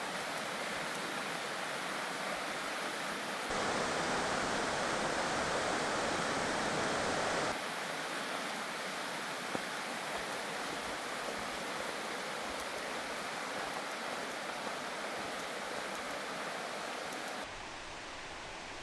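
Steady rushing of a mountain creek, with sudden jumps in level: louder for about four seconds starting a few seconds in, and quieter near the end.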